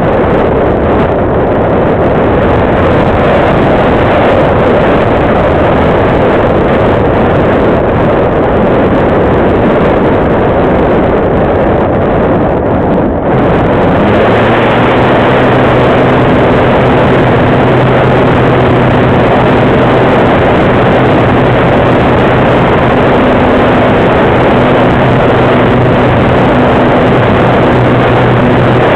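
Loud wind rushing over the microphone of the onboard camera on a Radian Pro electric glider, gliding with its motor off. About halfway through, the brushless electric motor starts and the folding propeller runs with a steady low hum under the wind to the end.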